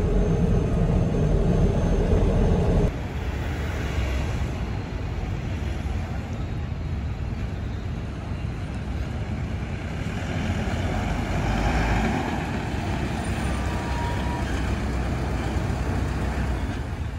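Force Traveller ambulance's diesel engine running with a steady drone, heard inside the cab while driving. About three seconds in it cuts to the ambulance heard from outside as it drives slowly over a dirt ground, its engine and tyres swelling a little as it comes closer.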